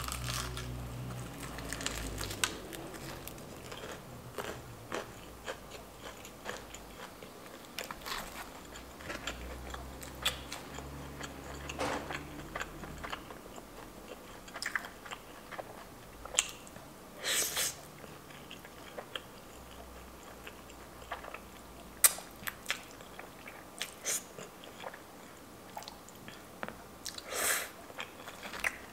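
Close-miked eating: a bite into crispy fried chicken, then chewing with scattered crisp crunches and clicks. A couple of longer, louder noises come about two-thirds of the way through and near the end.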